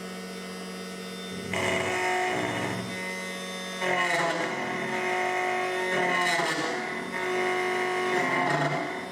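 SEC-E9 key cutting machine cutting a key blank: its motor hums steadily, and from about 1.5 s in the cutter grinds into the blank in three louder passes.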